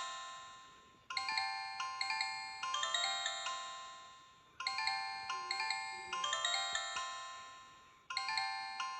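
Corise KS728 mobile phone ringtone: a short melody of quick, struck, bell-like notes that repeats about every three and a half seconds, each time fading away before it starts again.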